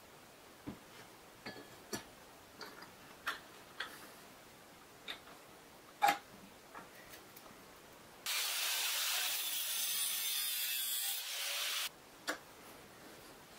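Light clicks and taps of metal tools against a square steel tube on a wooden bench. About eight seconds in comes a louder, steady hiss lasting three to four seconds that starts and cuts off abruptly.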